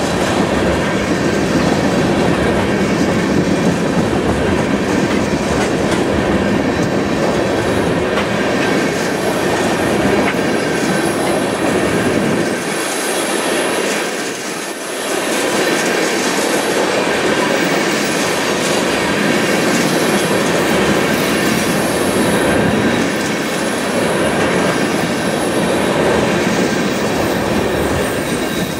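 Freight train tank cars rolling across a steel trestle: a steady noise of steel wheels on rail, with a thin high wheel squeal coming and going. It is briefly quieter about halfway through.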